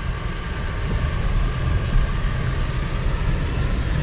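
Vehicle on the move: steady road and engine noise with a low rumble.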